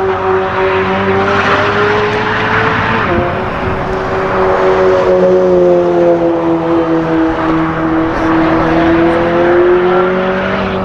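Race car engine running at high revs on the track. Its pitch dips briefly about three seconds in, sags slowly, then climbs again near the end.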